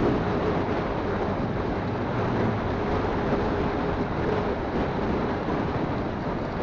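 Motorcycle riding at a steady cruise: a constant engine hum under heavy wind rush on a phone's microphone.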